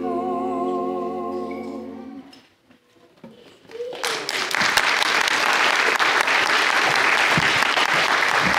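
Singers hold a final chord with vibrato that dies away about two seconds in. After a moment of near quiet, a church congregation breaks into sustained applause about four seconds in.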